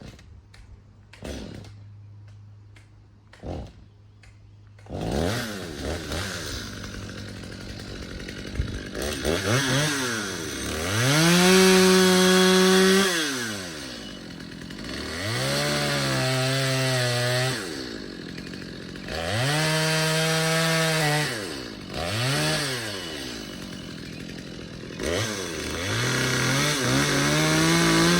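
Two-stroke chainsaw. For the first few seconds it is quiet with a few knocks; then, about five seconds in, it is throttled up and down several times, its pitch climbing to full revs, holding briefly and dropping back toward idle.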